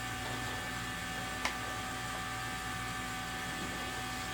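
Steady background hum with a few fixed tones, and a single light click about one and a half seconds in.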